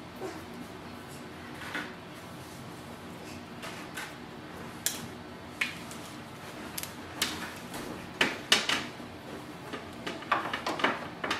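Power cord being handled and its plug pushed into the socket at the back of a laser printer: scattered light clicks and plastic knocks, thickening into a cluster of louder clicks in the last few seconds.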